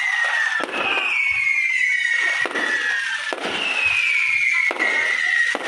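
Fireworks going off: several sharp bangs with crackle, and a high whistle that falls in pitch, repeating about every second and a half.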